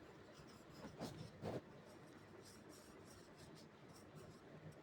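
Faint scratching of a pen or marker writing a few short strokes, mostly about a second in.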